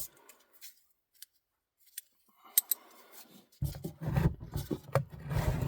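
Small metallic clicks and scrapes as the oil drain plug is turned back into the pan on its sealing washer, with a low rumbling handling noise from a bit past halfway.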